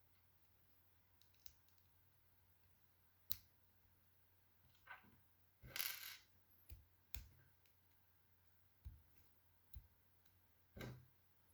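Sparse clicks and knocks of plastic Lego pieces being handled and pressed together, with a brief rattle about six seconds in.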